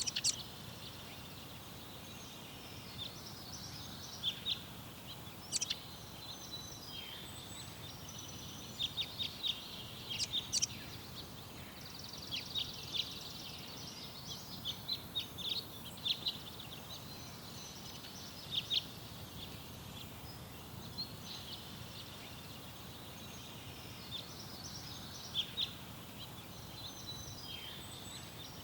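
Small garden birds chirping and calling in short, scattered notes, some in quick runs, over a steady low background noise.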